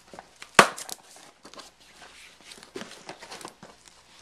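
Hands working at a cardboard shipping box sealed with packing tape: a sharp knock about half a second in, then irregular scratching, clicking and rustling of cardboard and tape as it is pried at.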